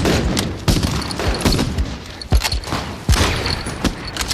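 Film battle soundtrack of World War II small-arms gunfire: many overlapping shots fired in an irregular barrage, several a second, over a continuous din.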